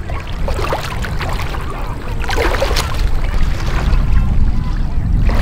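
Shallow water sloshing and splashing among rocks, in short irregular splashes over a steady low rumble.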